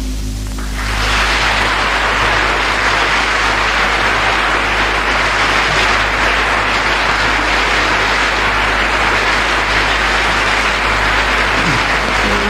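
Concert audience applauding, the clapping swelling up about a second in and then holding steady, over a low steady hum.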